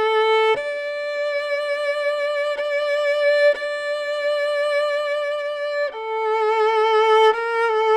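Violin bowed with Benoît Rolland's angled-frog Galliane bow, played in long, slow strokes with vibrato: a short note, then a higher note held for about five seconds, then back to lower notes near the end.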